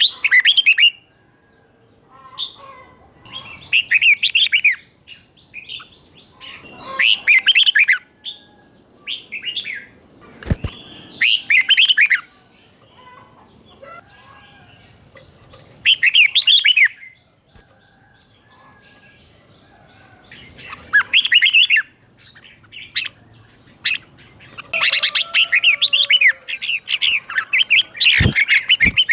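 Red-whiskered bulbul singing short, quick whistled phrases of about a second each, separated by pauses of a few seconds and coming more thickly near the end. There are two brief low knocks, one about ten seconds in and one near the end.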